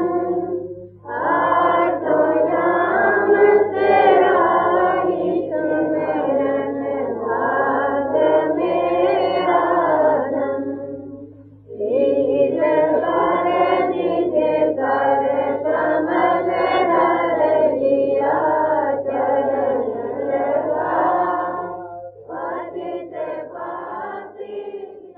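A group of voices singing a devotional hymn (bhajan) over a steady low hum. The singing runs in two long phrases, breaks briefly about eleven seconds in, and ends with a quieter phrase that fades away.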